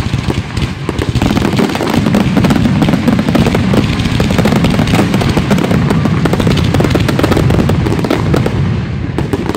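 Fireworks display in a dense barrage: many aerial shells bursting in quick succession with continuous crackling, loud and without a break.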